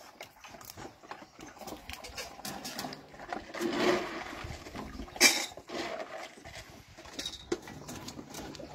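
Dog food being scooped from a bucket into a metal bowl: scattered rattles and clinks, a rush of food about four seconds in and a sharp clink of the bowl a little after five seconds.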